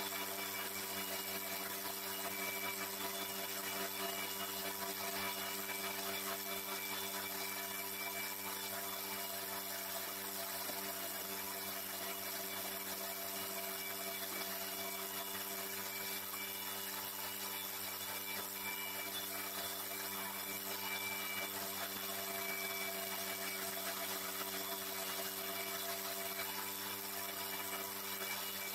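Homemade wood lathe's electric motor running steadily with a constant hum, spinning a wooden lure blank while a chisel is held against it to shape the wood.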